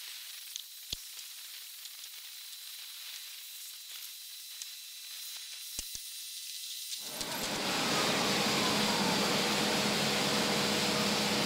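Faint steady hiss with a few sharp clicks; about seven seconds in, a telehandler's engine comes in much louder, running steadily with a low hum, as the machine sits or rolls on the bolted steel deck panels.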